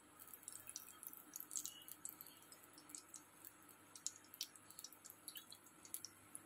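Faint, scattered crackles and small pops of cooking oil heating in a kadai on a gas burner.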